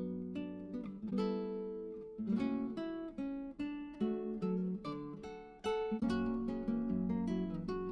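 Background music: acoustic guitar plucking and strumming chords at a steady pace.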